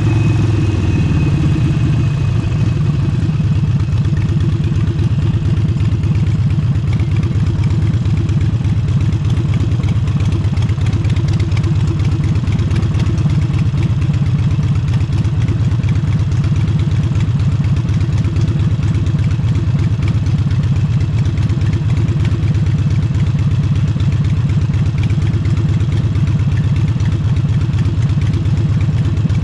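Harley-Davidson Forty-Eight's air-cooled V-twin, with a Vance & Hines aftermarket exhaust, idling steadily with its uneven low rumble after the revs drop just before.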